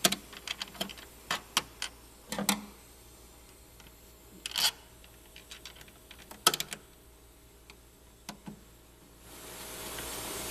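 Scattered light clicks and taps of screws and the running-board foot stop being handled as the screws are started by hand; a steady hiss comes up near the end.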